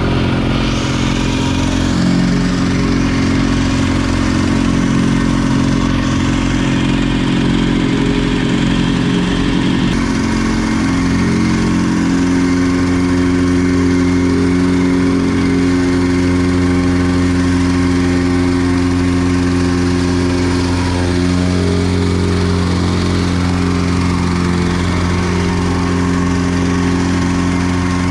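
Heavy-equipment diesel engine running steadily, its pitch shifting a couple of times as the machine works the gravel.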